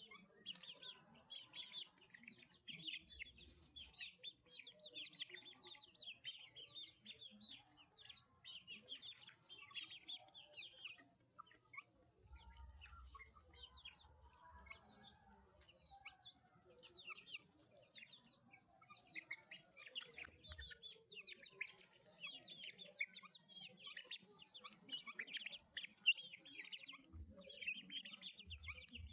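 A brood of Índio Gigante chicken chicks peeping: many short, high chirps overlapping almost without a break, with a couple of brief lulls.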